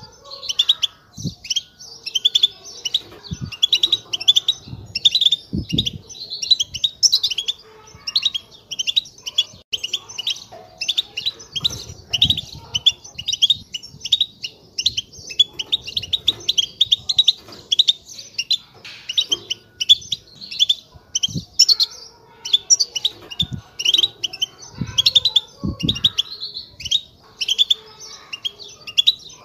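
A flock of European goldfinches twittering: a dense, continuous run of quick high chirps and trills, with a few short low thumps now and then.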